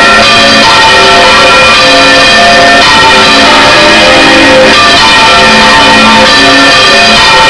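Three large bronze church bells being swung full circle on their metal yokes by electric motors, in the Valencian 'volteo' style. Their clappers strike again and again in a dense, unbroken, very loud peal of overlapping tones, heard from inside the belfry.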